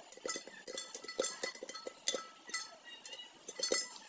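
Popcorn kernels popping in a covered metal pan: rapid, irregular pops, several a second, as the kernels strike the lid, which gives a short metallic ring with each hit.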